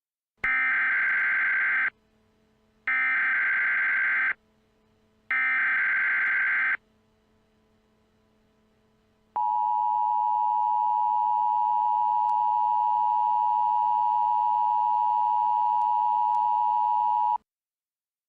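Emergency Alert System test signal: three bursts of the warbling digital SAME header data, each about a second and a half long. They are followed by the steady two-tone EAS attention signal, held for about eight seconds before it cuts off.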